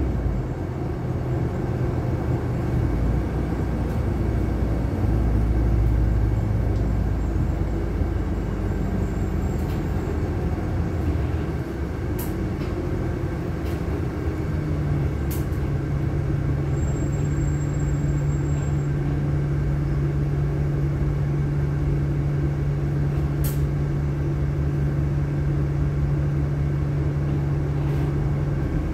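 Inside a LiAZ-6213.65 articulated city bus: steady engine and road rumble. From about halfway a steady low engine drone holds as the bus sits in stopped traffic, with a few sharp clicks from the cabin.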